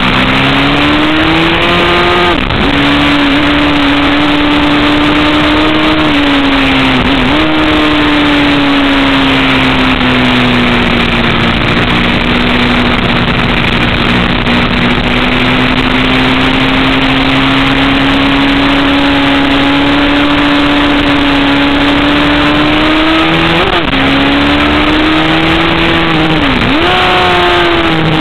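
Sport motorcycle engine running hard at high revs, heard from on the bike with heavy wind rush. The pitch sags and climbs slowly, and drops sharply and recovers a few times as gears are changed.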